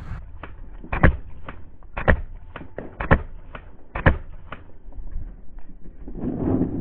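Paintball marker firing in slowed-down slow-motion audio: four loud shots about a second apart with fainter pops between them, and a muffled, blurred sound near the end.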